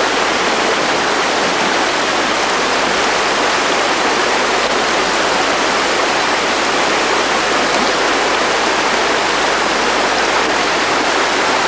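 Shallow, stony river rushing over rocks: a loud, steady, even rush of water.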